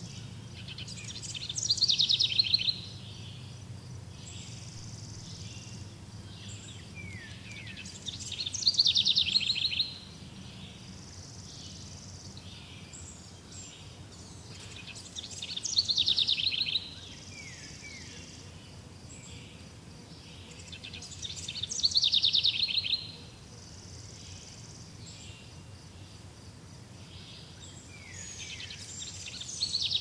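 A high, rapidly pulsing trilling call, repeated five times about every six and a half seconds; each burst swells and then stops abruptly. A few short falling notes sound between the bursts, over a faint low hum that fades in the first half.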